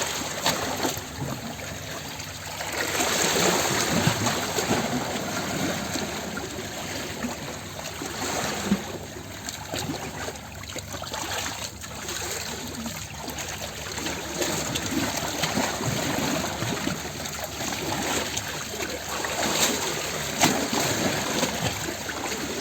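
Water flowing and trickling in a small stream, a continuous, uneven babble with a few brief sharper splashes.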